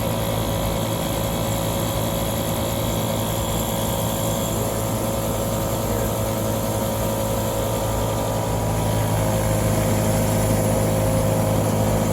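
Small ceiling-mounted water-cooled HVAC unit running: a steady mechanical hum with several held tones, which the technician hears as the unit creeping up. It gets a little louder about nine seconds in, when a new higher tone comes in.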